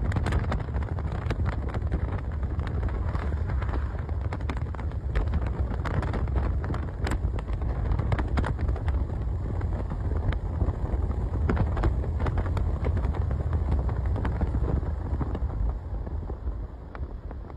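Low rumble of wind and road noise on a phone microphone in a moving car, with many crackles; it grows quieter over the last couple of seconds.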